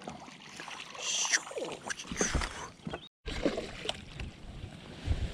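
Water splashing and sloshing at the side of a fishing boat as a hooked largemouth bass is played in, with one brief splash about a second in. The sound drops out for an instant just after three seconds at an edit cut.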